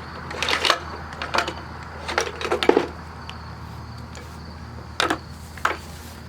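Clicks and knocks of hard objects being handled on a workbench: a few short clatters in the first three seconds and two more about five seconds in, over a steady low hum.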